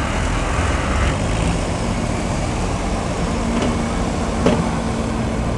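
Diesel pulling-tractor engine running steadily after its pull, a dense low drone with no revving. A steady tone joins about three seconds in, and there is one sharp knock about four and a half seconds in.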